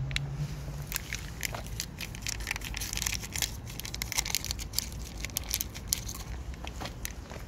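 Cats eating close up: a quick, irregular run of crunching and smacking clicks from chewing food.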